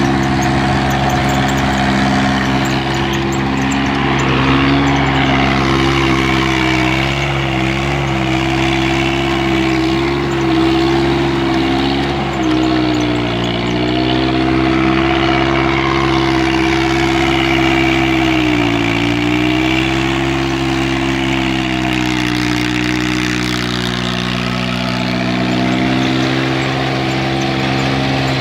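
Mitsubishi Shakti 18.5 hp compact tractor's diesel engine running steadily under load while its PTO drives a 7 ft rotavator through the soil. The engine's pitch sags briefly about three times as the tilling load rises, at about a quarter, just under half and two-thirds of the way through, then recovers.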